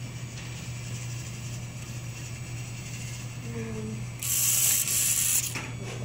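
VEX robotics kit conveyor running: a motor driving metal gears and a tread belt with a steady hum and ratcheting mechanical noise. About four seconds in, a much louder harsh mechanical whir lasts just over a second.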